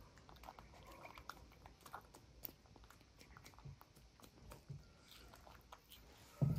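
Young monkeys chewing and biting into crunchy stir-fried green beans: faint scattered crunching and small clicks, with one short, louder low thump near the end.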